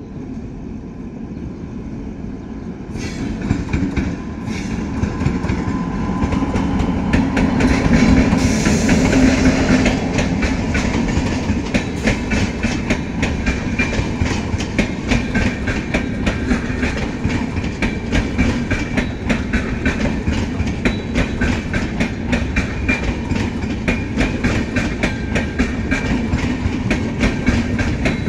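WAP7 electric locomotive and its train of passenger coaches running past. A rising rumble peaks as the locomotive draws level about eight seconds in, then gives way to a steady, rapid clickety-clack of coach wheels over rail joints.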